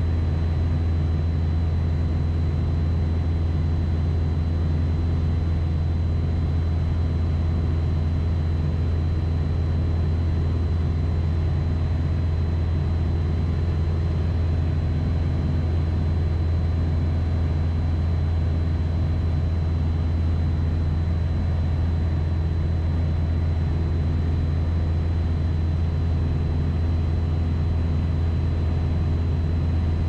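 Light single-engine training aircraft's piston engine and propeller droning steadily in cruise, heard from inside the cockpit, with a thin steady high-pitched whine over the drone.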